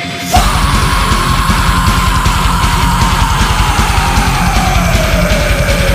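Heavy, guitar-driven rock music. The full band comes in suddenly about a third of a second in, with fast drumming under a long held note that slides slowly down in pitch.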